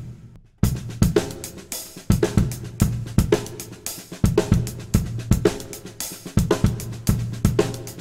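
Acoustic drum kit playing a sixteenth-note groove built from a displaced paradiddle sticking: bass drum, accented snare with ghost notes, and hi-hat. It drops out at the very start and comes back in about half a second in.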